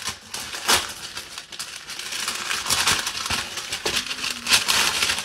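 Plastic-and-paper wrapper of a pack of parchment paper being torn open and crinkled by hand: a sharp rip about a second in, then steady crinkling and rustling.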